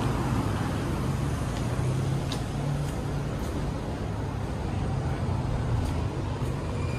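Steady low rumble of city street traffic noise.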